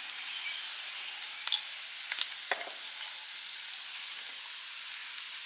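Onions, green chillies and spice powders frying in coconut oil in an uruli, with a steady sizzle. A few sharp clicks come over it, the loudest about one and a half seconds in.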